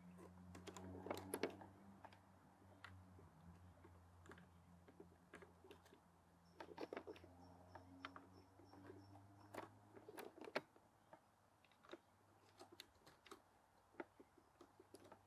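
Faint, scattered small clicks and taps of plastic bulb holders and a Citroën DS instrument cluster being handled, with a low steady hum underneath.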